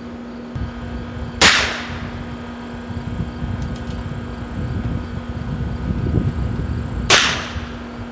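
Two shots from a Heritage Rough Rider .22 rimfire single-action revolver, about six seconds apart, each a sharp crack with a short echoing tail.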